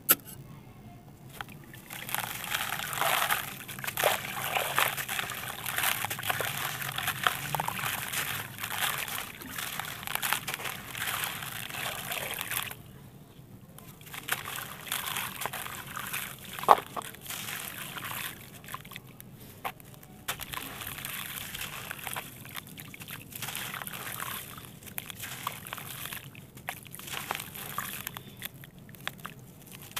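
A crumbly lump of sandy clay and grit broken apart by hand over a tray of water: loose grains and small stones trickle and patter into the water with a gritty crackle. A short lull comes about halfway, followed by a single sharp click.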